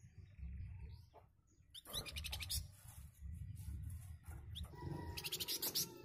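A caged flamboyan, a small Indonesian songbird, sings its dense, harsh chattering song in two bursts of rapid repeated notes, one about two seconds in and one near the end, with single chirps between them.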